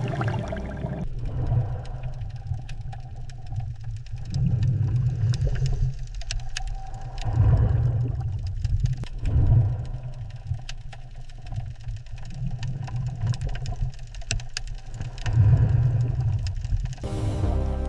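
A low, engine-like rumble that swells and fades every couple of seconds, with faint scattered clicks.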